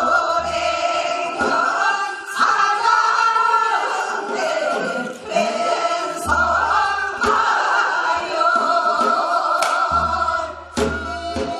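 A group of women singing a Gangwon-do folk song together in Korean traditional style, holding long notes that bend and waver, with short breaks between phrases.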